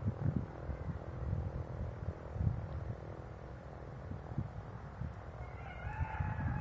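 Low, uneven rumbling noise, and near the end a short animal call with a clear, wavering pitch.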